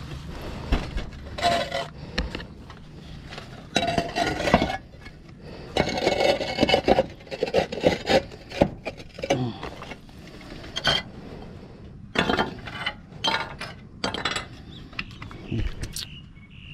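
Concrete roof tiles scraping and rubbing against each other as they are lifted, slid and set back in place, in irregular bursts with a few clinks of tile on tile.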